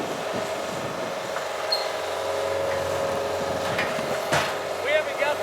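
Skid steer engine running steadily while working the Firminator implement, with a single sharp clank about four seconds in.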